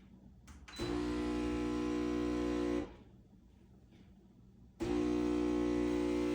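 Casabrews CM5418 espresso machine's pump humming steadily as it pushes water through the coffee. Two clicks come first, then it runs for about two seconds, stops, and starts again about two seconds later, this time keeping on running.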